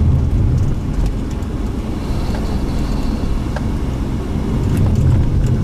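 A car driving along the road: a steady low rumble of engine and tyres, heard from inside the car.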